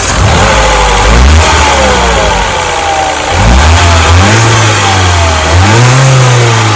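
Mini's petrol engine, just started, revved three times and settling back between revs. It runs evenly on a new ignition coil, with the misfire cured.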